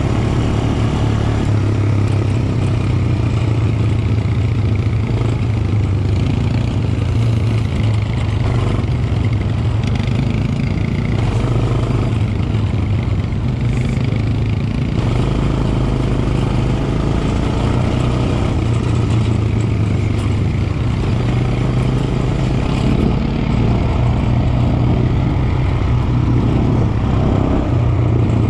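Quad bike engine running steadily under way, heard from the rider's own machine as a constant low drone.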